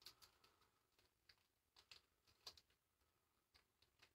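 Near silence with a few faint, irregular clicks and taps.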